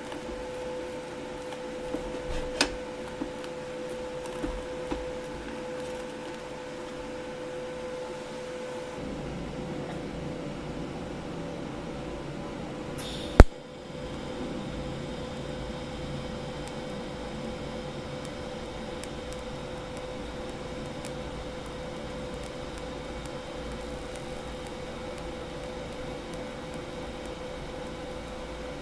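Steady hum of a TIG welding setup and its cooling fan, with a few light clicks in the first few seconds and one sharp, loud click about 13 seconds in.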